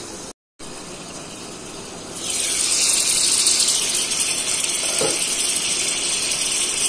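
Chicken parcels wrapped in bottle gourd leaves frying in oil in a pan: a muffled sizzle under the lid that turns to a loud, steady hiss about two seconds in as the pan is uncovered.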